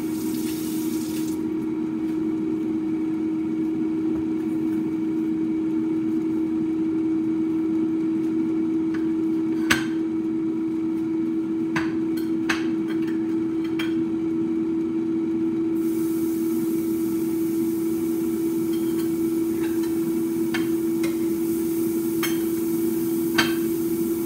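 Steady hum of an air fryer's fan running while food cooks, with a handful of sharp clicks and taps from a utensil on a tray and dishes.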